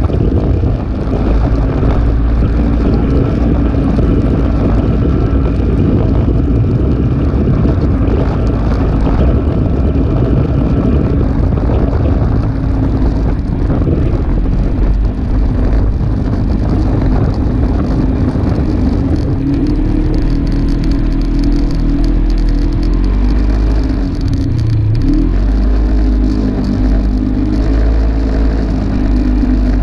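Polaris RZR 570 side-by-side's single-cylinder engine running while driving, with a steady low rumble; its pitch rises and falls a few times in the second half.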